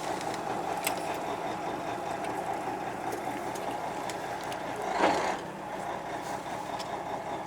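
Fishing boat's engine idling steadily, with one brief louder sound about five seconds in.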